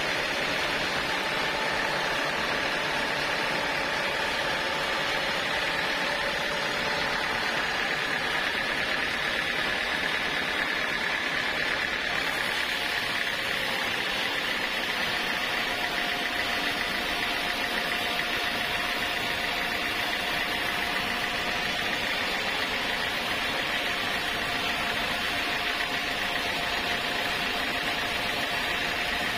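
Sawmill saw running steadily with a high, even whine; a second, lower steady tone joins about halfway through.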